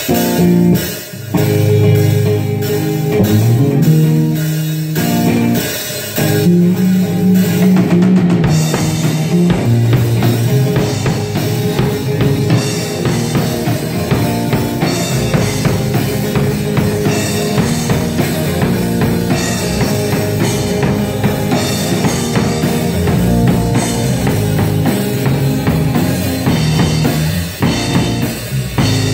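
Live rock band playing loud: two electric guitars over a drum kit, an instrumental passage with a steady beat.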